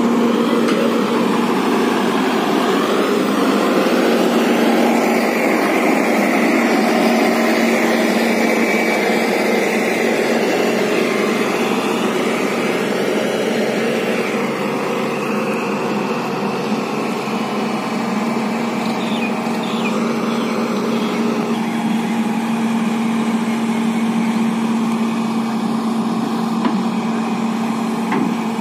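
JCB JS140 tracked excavator's diesel engine running under load, with a steady hum, as the machine levers itself up onto a flatbed truck with its boom and bucket.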